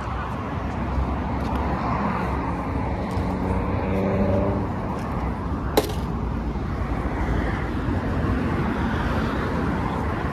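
Steady city road traffic noise, with a vehicle passing about four seconds in and a single sharp click a little past the middle.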